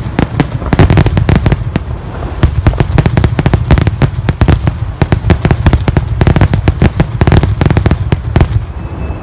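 Fireworks display: rapid, overlapping bangs and booms of aerial shells bursting, one after another, dying away near the end.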